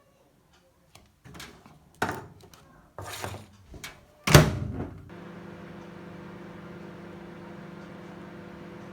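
Knocks and clatter of an item being put into a microwave oven, the oven door shut with a loud thump a little over four seconds in, then the microwave oven running with a steady hum.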